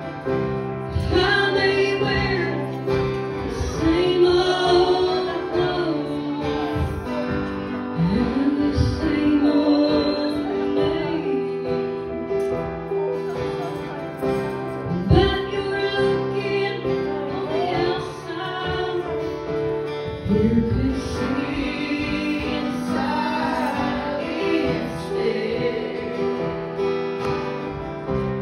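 A woman singing into a microphone while accompanying herself on an electronic keyboard: held keyboard chords under a sung melody.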